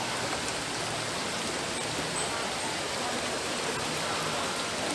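Shallow rocky river rushing steadily over stones and a low drop, a continuous even wash of flowing water.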